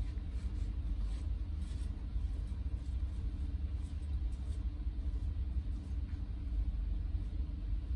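A steady low rumble fills the tunnel, with faint footsteps on the rocky floor in the first couple of seconds.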